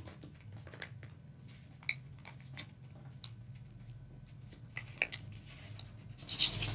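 Paper being folded and creased by hand on a tabletop: scattered faint crinkles and ticks, with a louder rustle of the paper near the end.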